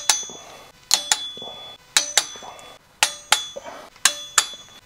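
Torque wrench clicking on the flywheel bolts as each one reaches its set torque of 65 ft-lb. Sharp metallic clicks with a brief ring come about once a second, most of them in quick pairs.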